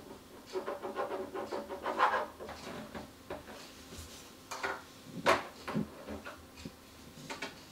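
Plastic magnetic drawing board in use: a quick run of short scratchy strokes and taps from the pen on the screen over the first couple of seconds. After that come a few separate sharp plastic clicks and knocks as the board is handled.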